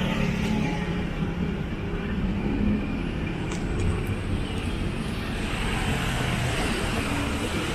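City road traffic passing: a steady hum of vehicle engines and tyres.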